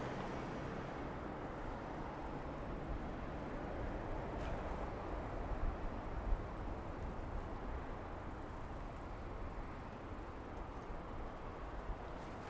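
Steady rumble of a bicycle rolling along a road, tyre and wind noise, with a few light knocks from bumps along the way.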